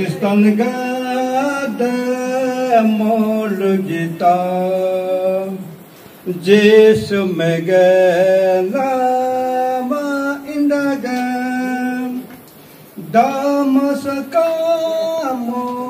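A man singing a Christian gospel song solo into a microphone, unaccompanied, in long held phrases with two short breaks for breath.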